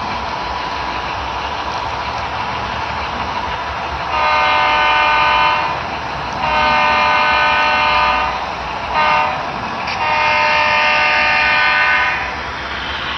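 HO scale model diesel locomotive's sound-system horn blowing long, long, short, long, the grade-crossing signal, over the steady running sound of the model train.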